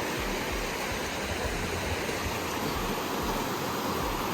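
Shallow river water running over rocks, a steady, even rush with no breaks.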